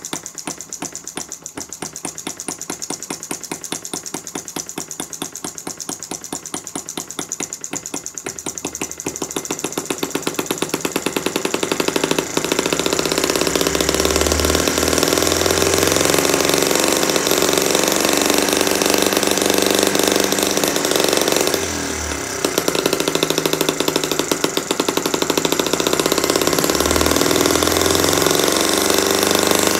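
Single-cylinder Stirlingkit model engine running on its newly fitted ignition. It fires with slow, even knocks at first, then speeds up over the first dozen seconds to a faster, steady run of several hundred rpm, with a brief dip a little past twenty seconds.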